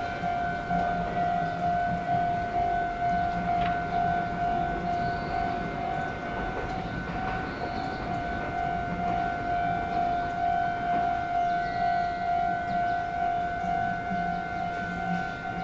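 Japanese railway level-crossing alarm ringing continuously, a steady repeating ding.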